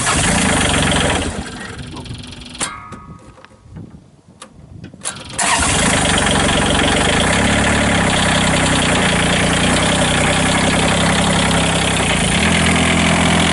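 Kubota D722 three-cylinder diesel engine being started: a brief loud burst, a few seconds quieter with a few clicks, then it catches about five seconds in and runs steadily, its pitch shifting slightly near the end.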